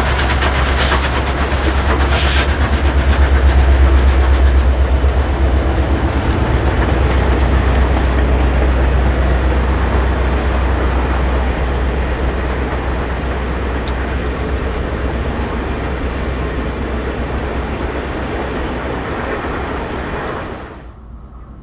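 Union Pacific 4014 Big Boy steam excursion train rolling past with a deep, heavy rumble and wheels clicking over the rail joints. It is loudest a few seconds in and then slowly fades, before cutting off abruptly near the end.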